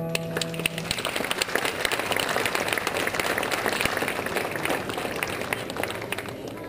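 Street audience applauding at the end of a song, the band's last held note dying away in the first second; the clapping thins out near the end.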